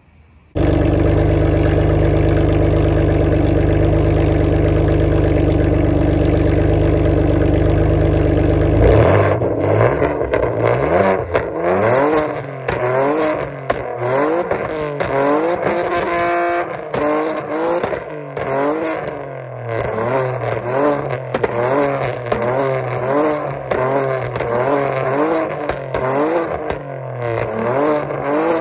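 Straight-piped, catless 2015 Ford Taurus Limited exhaust, very loud. The engine holds steady high revs for about eight seconds, then is revved up and let drop again and again, with sharp pops and crackles from its pops-and-bangs tune.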